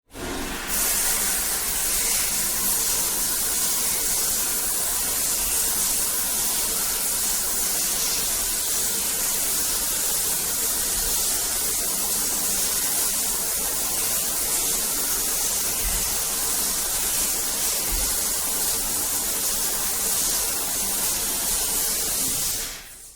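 Recorded rain: a steady hiss of falling rain that fades in just after the start and fades out near the end.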